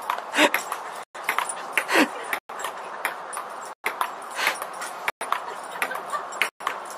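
A dog whining and yipping, with one falling cry about two seconds in, among scattered clicks and knocks. The sound cuts out completely for a moment about every second and a half.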